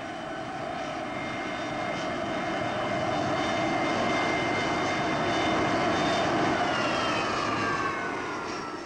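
Airliner engines running: a steady roar with a high whine over it, growing louder toward the middle. Near the end the whine slides down in pitch and the sound fades.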